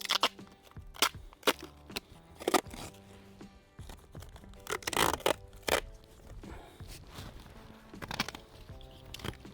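Polythene sheeting and repair tape crackling and tearing as they are handled, in about six short sharp bursts, the longest a little after five seconds in, over background music.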